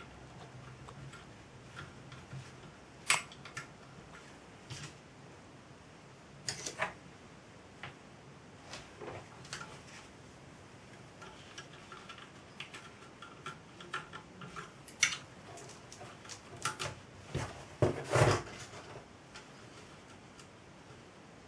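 Scattered small metal clicks and taps as tweezers and small parts are handled at the cylinder of a model steam traction engine, with a few sharper knocks, the loudest near the end.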